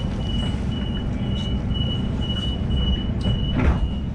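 A Sydney suburban train's door warning beeps at about two beeps a second, over the low rumble of the standing train. Near the end there is a single thud and the beeping stops, as the doors shut.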